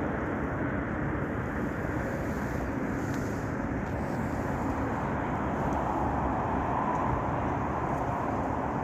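Steady wind rushing, a dense even rumble without breaks or gusts.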